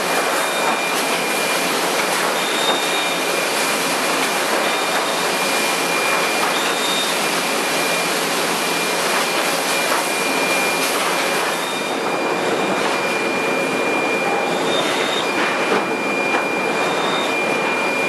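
Sawmill board-handling machinery running: chain transfer conveyors and rollers moving boards, a steady dense clatter with a thin high whine held throughout and brief higher squeals on and off.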